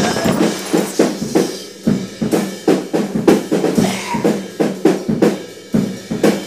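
A drum kit being played in a steady beat, about three hits a second.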